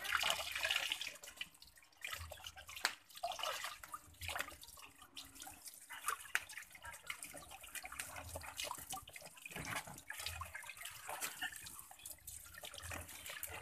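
Water splashing and sloshing in a plastic tub, with irregular splashes and drips as a palm civet is dunked and lifted out of it during a bath.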